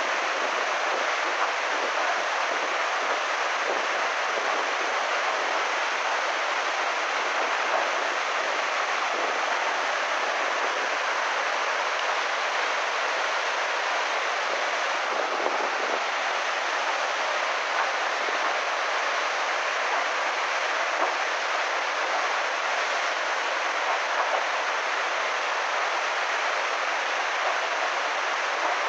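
Muddy flash floodwater rushing in a torrent: a steady, unbroken noise that neither builds nor fades.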